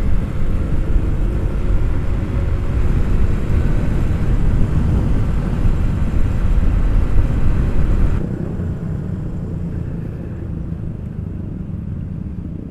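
Motorcycle ridden on the road: a dense low rumble of wind rushing over the microphone together with engine and road noise. About eight seconds in it drops suddenly to a quieter, steadier engine hum.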